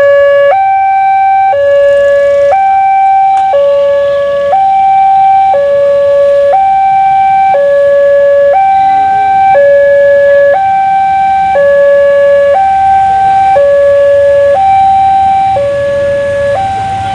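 Two-tone hi-lo siren alternating steadily between a higher and a lower note, each held about a second.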